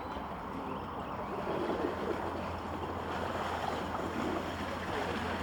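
Steady outdoor rushing noise, wind on the microphone, with a low hum underneath.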